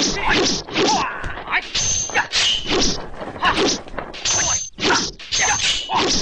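Dubbed kung fu film fight sound effects: a rapid run of sword swishes and whacks, two to three a second. Several have a short high metallic ring as the blades clash.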